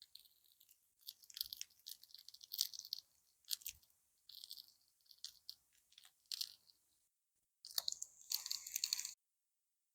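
Bannock frying in hot oil in a cast-iron pan over a campfire, crackling and spitting in irregular short bursts. It grows dense near the end and cuts off suddenly.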